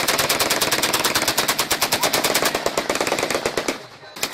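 Kalashnikov-type assault rifle fired on full automatic into the air: one long continuous burst of about ten shots a second, which stops a little before the end, then another burst begins just at the end.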